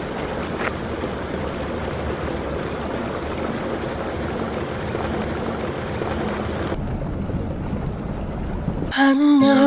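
Steady churning water and low rumble of a moored boat's propeller wash boiling up beside the quay. Music comes in near the end.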